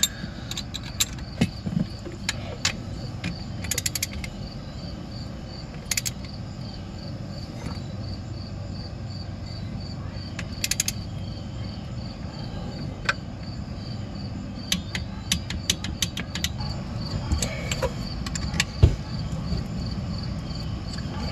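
Hand ratchet wrench clicking in short quick bursts as it turns the mounting bolts of a snowmobile's two-stroke oil injection pump, with scattered taps of the tool on metal.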